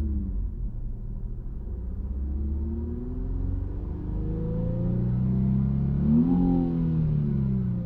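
Nissan Skyline 400R's 3.0-litre twin-turbo V6 heard from the driver's seat through a NISMO titanium sports muffler, revved in place. The engine note climbs slowly for about six seconds, peaks, then falls back toward idle near the end.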